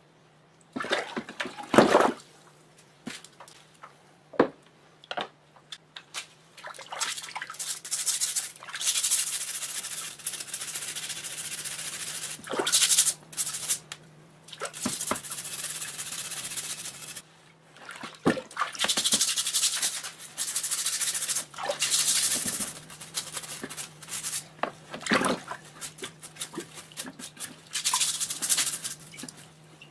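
A stiff plastic brush scrubbing rusty finned air-compressor parts in a tub of cleaning liquid, in stretches of a few seconds. Water splashes and sharp knocks come in between as the parts are moved in the tub.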